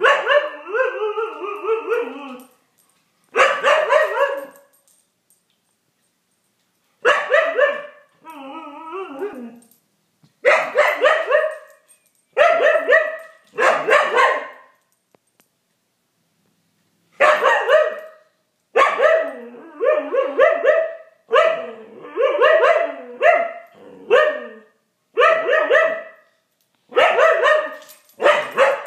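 Husky play-barking at a cat: a run of about a dozen drawn-out, wavering barks, each one to two seconds long, with short pauses between them.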